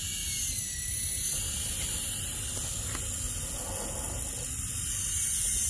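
Small electric winch motor on an RC scale crawler running steadily, a thin high-pitched whine as it reels in the line.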